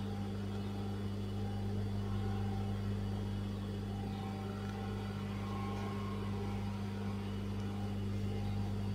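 Steady low electrical hum at mains pitch, unchanging throughout, with faint short high tones coming and going over it.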